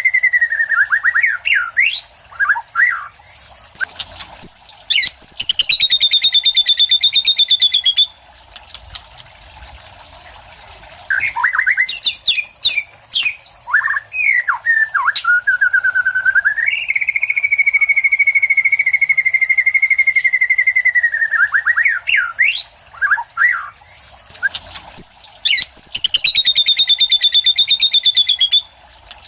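White-rumped shama (murai batu) in full song: long steady whistled notes, bursts of quick sliding chirps, and twice a fast rattling trill that sweeps down in pitch, about five seconds in and again near the end.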